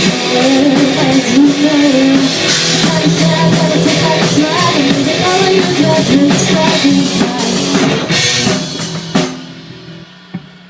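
Rock band playing live, with a drum kit and electric guitar; the song stops on a final hit about nine seconds in.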